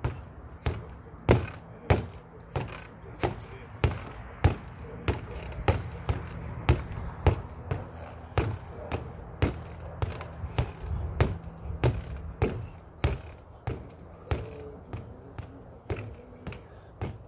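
Boxing gloves punching a freestanding reflex bag: a steady string of sharp thumps, about two a second.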